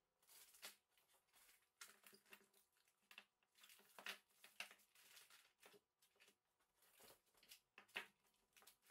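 Faint crinkling of plastic and soft knocks as frozen vacuum-sealed meat packs are handled and set down on a granite countertop, in many short, irregular clicks and rustles.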